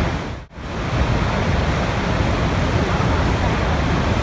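Steady rushing water, a continuous even noise that dips sharply and briefly almost to silence about half a second in, then comes straight back.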